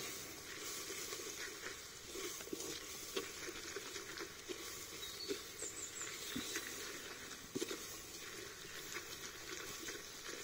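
Sliced onions and green chilies sizzling as they fry in a clay pot, with irregular knocks and scrapes of a wooden spatula stirring against the pot.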